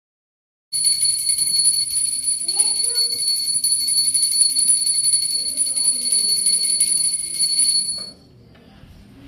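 Puja bell rung rapidly and continuously for aarti, a steady bright ringing that starts suddenly about a second in and stops abruptly near the end. A faint voice is heard beneath it.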